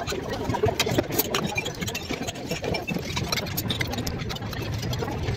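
A vehicle engine running steadily, a low rumble with scattered clicks and rattles over it.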